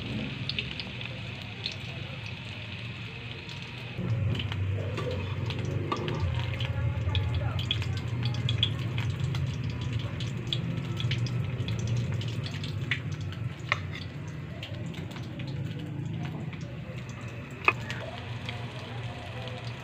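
Shrimp fritters (okoy) sizzling in hot oil in a wok as a steady frying hiss, which gets louder about four seconds in. A few sharp clicks stand out, the loudest near the end.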